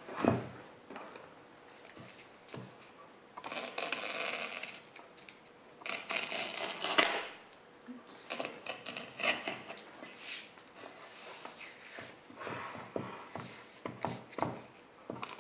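Fabric-covered cardboard rustling and scraping as it is handled and slid over a wooden floor, with a sharp click about seven seconds in. After that come a run of short snips and clicks as the fabric edges are trimmed with scissors.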